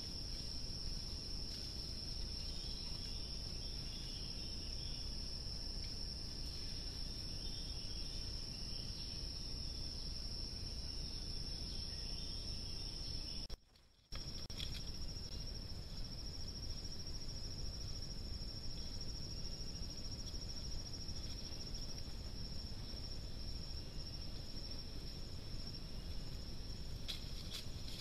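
Steady, high-pitched drone of forest insects over a constant low background hiss, broken briefly by a cut about halfway through.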